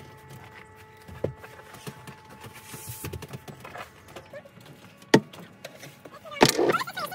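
Things being handled and set down: rustling with a few sharp knocks spread through, and a louder burst near the end.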